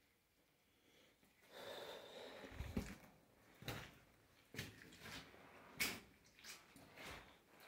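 Footsteps scuffing and crunching on loose stone, with a string of sharp, irregular knocks starting about a second and a half in.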